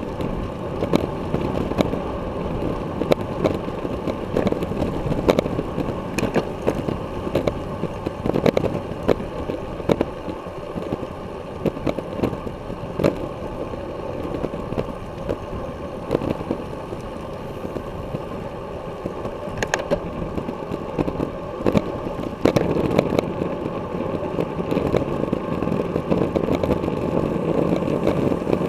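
Wind buffeting the microphone of a bicycle-mounted action camera while riding at race speed, with tyre and road noise and frequent short knocks and rattles as the bike goes over the pavement.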